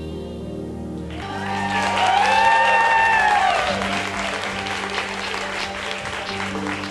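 Background music plays, and about a second in an audience breaks into applause over it. A loud arching cheer rises and falls in the middle of the applause.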